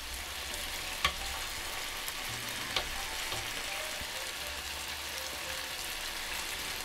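Marinated spicy chicken dakgalbi sizzling steadily on a griddle as it is stirred with tongs and cut with kitchen scissors, with a couple of sharp clicks of the utensils against the plate, one about a second in and another near three seconds.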